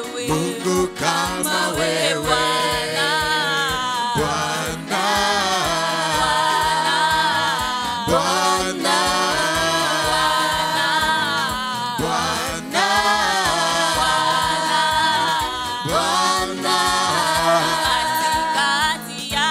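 A woman singing a gospel worship song with instrumental backing, in long held phrases with a wavering pitch.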